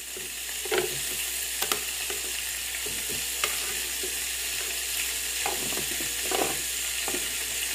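Split dried fish (daing) sizzling on a hot electric grill plate: a steady frying hiss with occasional sharp pops and crackles.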